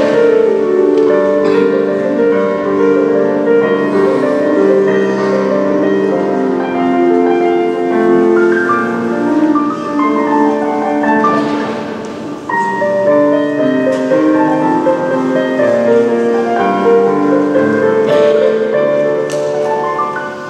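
Casio digital piano playing a waltz in a piano voice, a melody over sustained chords.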